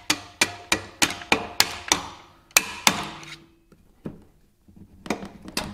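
Hammer blows on a screwdriver used as a punch, knocking the rear engine mount bolt out through a pit bike engine's mounts: sharp strikes about three a second, a short pause, then a few more near the end.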